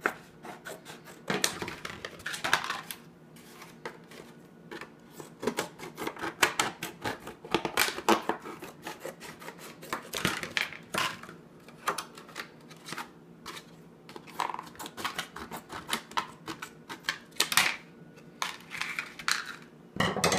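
Scissors cutting through a thin plastic gallon jug: a quick, irregular run of crisp snips and crunches as the blades bite and close, with short pauses as the jug is turned. A louder knock comes right at the end.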